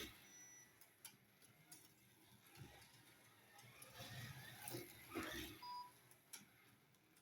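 Faint sound of a Carrera 1/32 slot car lapping a plastic track, swelling briefly as it passes about five seconds in, with light ticking between passes.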